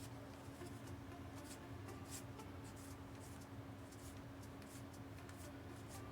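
Faint, irregular soft swipes and flicks of trading cards being slid and flipped through by hand, over a steady low hum.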